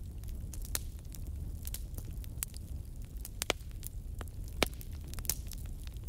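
Wood fire burning, crackling with irregular sharp pops and snaps, two louder pops a little past the middle, over a steady low rumble.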